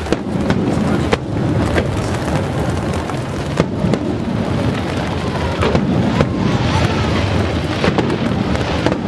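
Aerial fireworks shells bursting and launching in quick succession: a string of sharp booms over a continuous low rumble, with a crackle between them.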